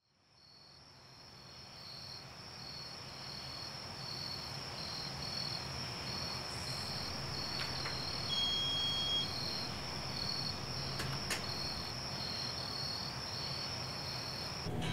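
Night-time crickets chirping in a steady high pulsing chorus, fading in from silence over the first couple of seconds, over a low hum. A short, thin high whistle sounds once about eight seconds in.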